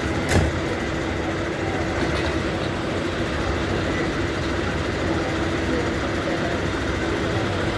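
Fire engine's engine idling at the kerb: a steady rumble with a constant hum. A single brief knock sounds about half a second in.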